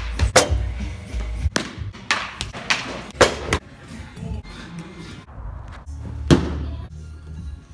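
A series of sharp knocks and thuds from baseballs being thrown, caught and hit during practice, over background music. The loudest knock comes about six seconds in.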